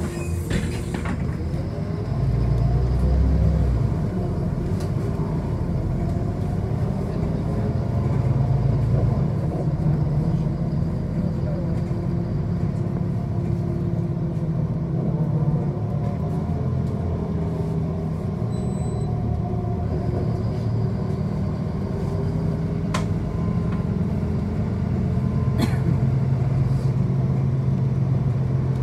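Inside a moving city bus: a steady low rumble from the drive and the tyres on the road, with a faint whine that slowly slides up and down in pitch as the bus speeds up and slows.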